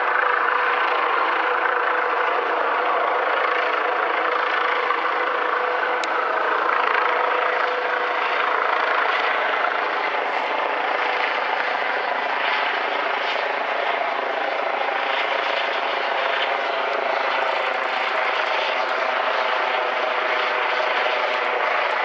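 Helicopter hovering, a steady, unbroken rotor and engine drone.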